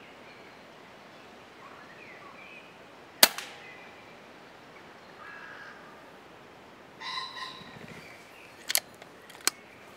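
A single shot from a Daystate Wolverine pre-charged air rifle about three seconds in, a sharp crack with a brief ring, that kills a grey squirrel with a clean headshot. Faint bird calls sound around it, and two smaller sharp clicks come near the end.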